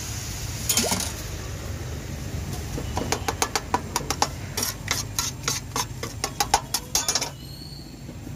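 Metal spatula chopping and mixing ragda on a flat steel griddle: a rapid run of sharp metallic clicks, about five a second, starting about three seconds in and stopping near the end. A steady low rumble runs underneath.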